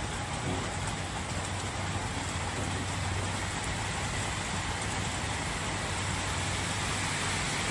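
Heavy rain falling steadily, an even hiss with a steady low hum underneath.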